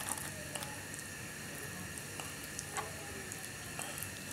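Serrated knife cutting and scraping raw chicken wing meat back from the bone on a wooden chopping board: faint wet squishing with scattered small clicks.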